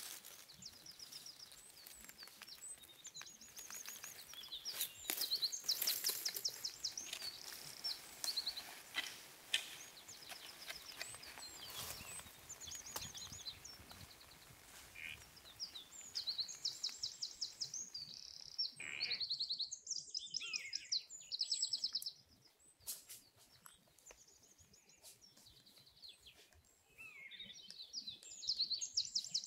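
A songbird sings short, fast, high-pitched trilled phrases, repeated every couple of seconds. Dry leaf litter rustles and crackles in roughly the first half.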